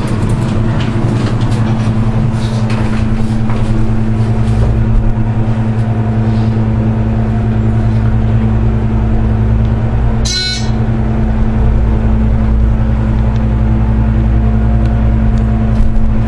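ThyssenKrupp hydraulic elevator machinery humming steadily during a ride, with a brief high-pitched chirp about ten seconds in.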